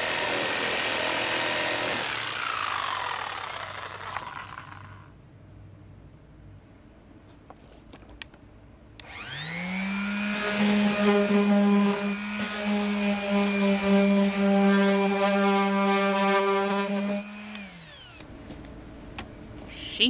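Corded jigsaw cutting thin plywood. It is running at the start and dies away over the next few seconds. About nine seconds in it starts again with a rising whine, runs steadily through the cut, and winds down a couple of seconds before the end.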